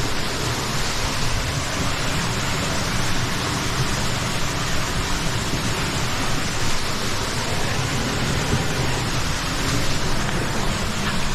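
Mountain stream water rushing over rocks in a gorge: a steady, even noise with no breaks.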